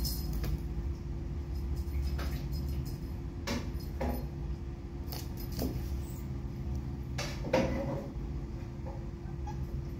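A few short metallic jingles and clicks at irregular moments over a steady low hum.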